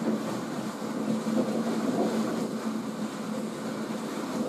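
Drum carder turning as wool is carded onto its drum: a steady mechanical running noise with a low hum under it.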